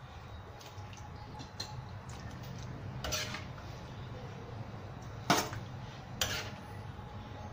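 A metal serving spoon clinking against a stainless steel tray as sweet-and-sour sauce is spooned over fish: a few light taps, then three sharp clinks, the loudest just past the middle.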